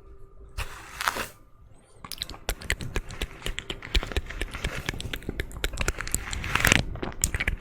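Close-miked ASMR trigger sounds: a short swish about a second in, then dense crackling and scratching from about two seconds in.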